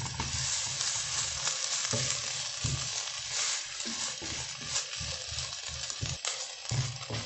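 Shrimp and chopped vegetables sizzling in oil in a pot, with a steady frying hiss, while a wooden spoon stirs them in irregular strokes, scraping and knocking against the pot.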